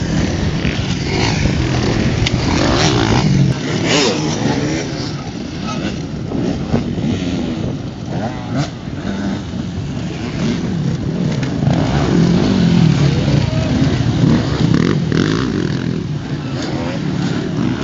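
Several enduro motorcycle engines revving, their pitch repeatedly rising and falling and overlapping as the bikes race past.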